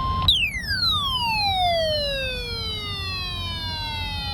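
A steady high electronic tone cuts off just after the start. It is replaced at once by a pitched tone that slides steadily downward from very high to low over about three and a half seconds, with its overtones falling with it. Further downward slides overlap it toward the end.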